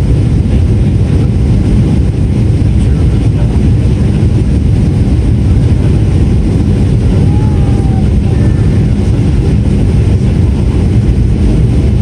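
Airliner cabin noise from a window seat near a turbofan engine during a low approach: a steady, loud, low rumble of engine and rushing air.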